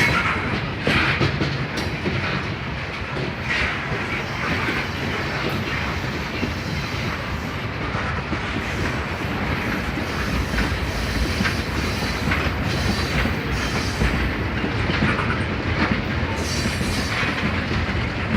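Train cars rolling past with a steady rumble and wheels clacking over the rail joints, with a higher screech from the wheels now and then.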